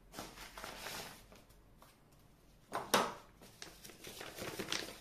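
A sheet of paper rustling and crackling as it is handled and sliced with a Joker Rabbit fixed-blade knife to test its factory edge, with two sharp crackles about three seconds in.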